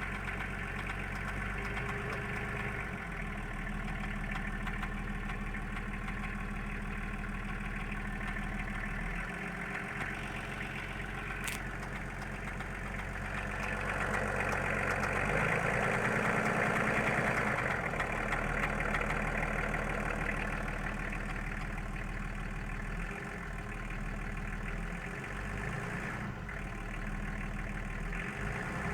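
A 1995 Volkswagen LT28's 2.4 turbodiesel engine idling steadily with a foreign clicking noise in its running, an unexplained fault that the owner says sometimes goes away and comes back. The engine grows a little louder for a few seconds around the middle.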